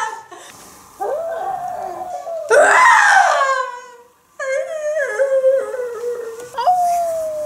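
A woman imitating a werewolf transformation with her voice. A moan, then a loud howl about two and a half seconds in that slides down in pitch, then wavering, stepped whimpers and a long, slowly falling whine near the end.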